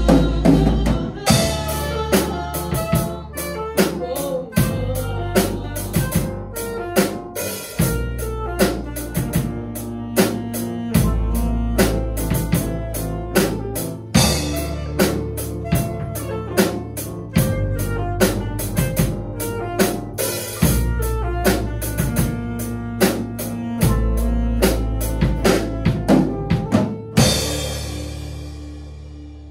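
Live band playing an instrumental passage: drum kit keeping a steady beat under bass, piano, electric guitar and saxophone. Near the end it stops on a cymbal crash that is left ringing.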